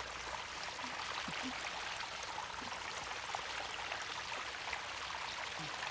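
A steady, even rushing noise like running water, with no other clear sound.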